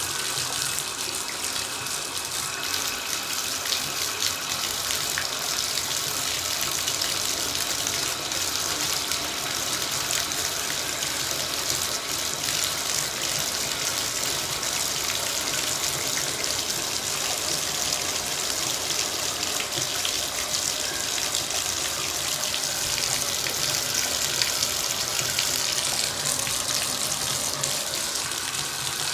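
Bathtub tap running steadily, water pouring into a filling tub.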